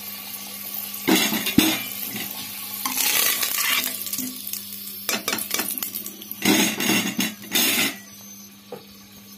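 Metal ladle scraping and knocking against the inside of a pressure cooker as fried potatoes are scooped out of hot oil, with the oil sizzling. The scraping comes in several separate bursts with one sharp knock, and it goes quieter about eight seconds in.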